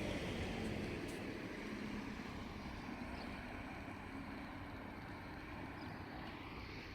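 Low rumble of a passing vehicle fading steadily as it moves away.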